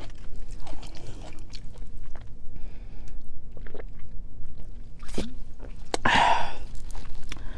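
Close-miked mouth sounds of eating and drinking: scattered small wet clicks of chewing and swallowing, gulps of cola from a plastic bottle, then a short loud breath out of the open mouth about six seconds in.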